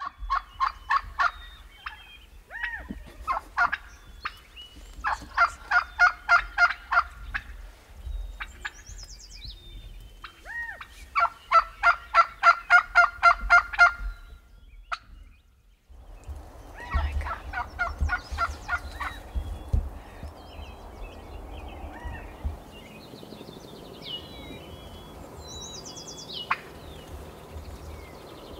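Wild turkeys calling: several runs of rapid, evenly spaced notes, each a couple of seconds long. Small birds chirp faintly between the runs and near the end.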